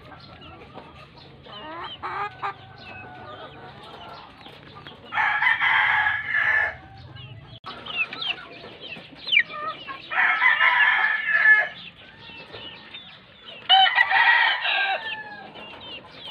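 Gamefowl roosters crowing three times, each crow about a second and a half long, over softer clucking and chirping from other fowl.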